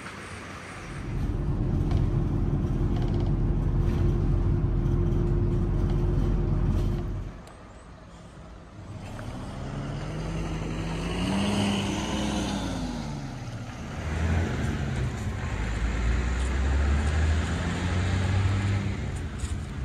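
Road vehicle engine noise: a steady, loud low drone that cuts off abruptly about seven seconds in. Then an engine rises and falls in pitch a couple of times as a vehicle passes or accelerates.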